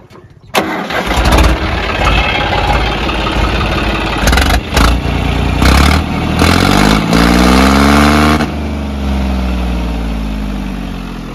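John Deere 5050 D tractor's three-cylinder diesel engine starting about half a second in and running loud and uneven. It is revved up, rising in pitch toward the end of the run, then slowly drops back toward idle.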